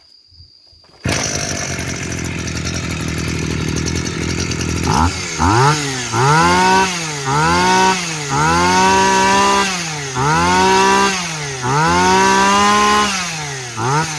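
Tanaka 25cc two-stroke brush-cutter engine catching about a second in and idling, then revved over and over from about five seconds in, the pitch rising and falling about once a second. It runs cleanly, which the seller takes as a sign of a good engine.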